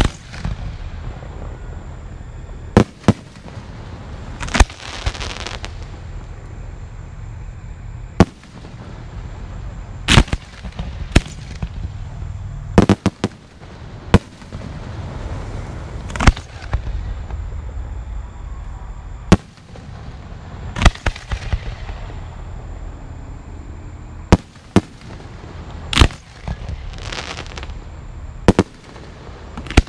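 Aerial firework shells bursting overhead in sharp bangs every second or two, each trailed by a rumbling echo, with a few longer hissing spells from the bursting stars.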